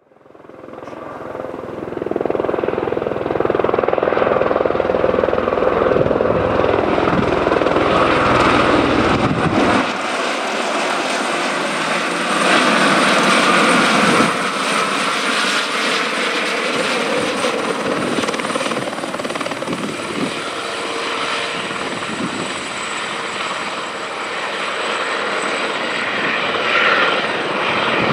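Airbus Helicopters EC130T2 (H130) flying low nearby, with steady turbine whine and rotor noise from its Arriel 2D turboshaft, main rotor and Fenestron tail rotor. It fades in over the first two seconds, and about ten seconds in the deep rumble drops away.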